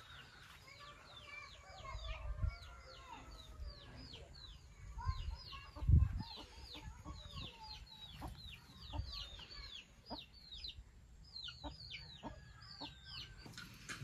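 Chickens calling: a steady run of short, quickly falling high peeps, with lower clucking in the first few seconds. A few low thumps come through, the loudest about six seconds in.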